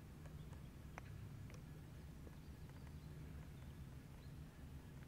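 Quiet open-air ambience with a steady low rumble. About a second in comes one faint, sharp click: a golf club striking the ball on a chip shot.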